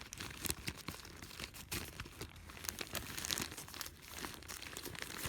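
Hands rummaging and handling small parts, with crinkling and rustling and scattered small clicks and taps.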